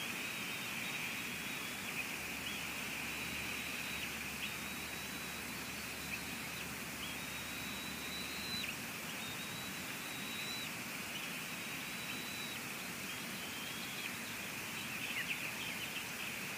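Steady hiss of rain outdoors, with a faint high whine that comes and goes every couple of seconds and a few soft chirps and clicks near the end.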